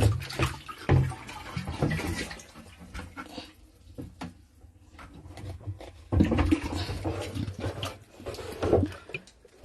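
Water splashing and sloshing as a container is dipped and filled, with scattered knocks from handling it, busier near the start and again from about two-thirds of the way in.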